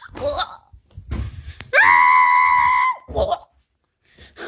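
A high-pitched scream held at one steady pitch for just over a second, starting about two seconds in, with short vocal sounds just before and after it.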